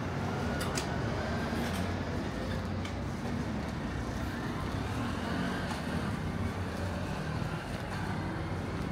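Steady street traffic noise: the engine rumble of a motor vehicle close by, with a few faint clicks.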